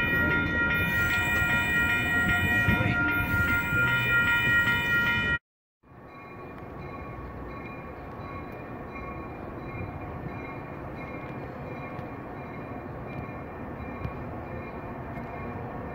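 Amtrak Hiawatha train's air horn sounding one long, steady, multi-note blast that cuts off abruptly about five seconds in. After a moment of silence, a quieter, steady rumble of a Metra commuter train crossing a steel bridge.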